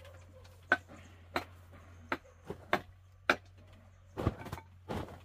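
A series of sharp, irregular knocks, about eight in the first three and a half seconds, then two longer, rougher clusters near the end, over a low steady hum.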